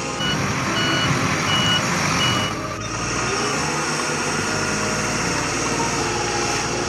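Reversing alarm beeping four times, about 0.7 s apart, over a running heavy-vehicle engine. After about three seconds the beeping stops and the engine runs on steadily.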